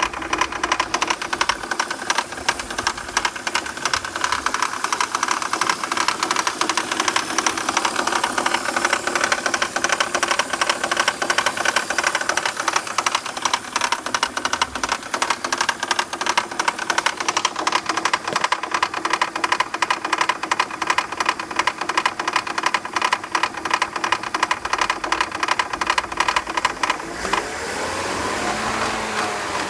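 BMW 323ci's inline-six engine running with a fast, continuous metallic rattle from the power steering pump pulley, whose mounting bolts have worked loose. Near the end the rattle stops, and a sweeping tone rises and falls.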